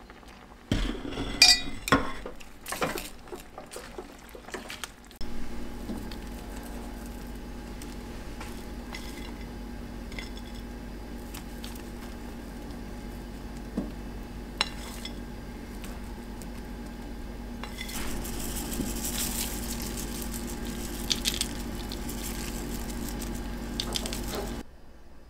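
A pan of tteokbokki and ramen simmering on the stove as ingredients are added: several knocks and clinks of dishes in the first few seconds, then steady simmering over a low hum, with a brighter hiss near the end.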